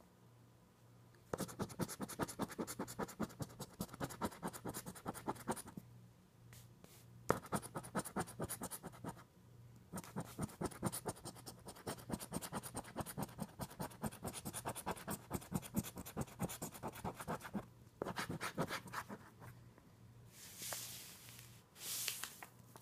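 Scratch-off lottery ticket being scratched to uncover symbols: quick, rapid scraping strokes in three spells separated by brief pauses, stopping a few seconds before the end.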